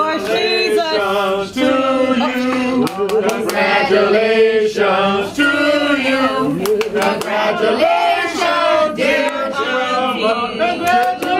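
A group of people singing a congratulations song together, several voices holding the notes of the tune.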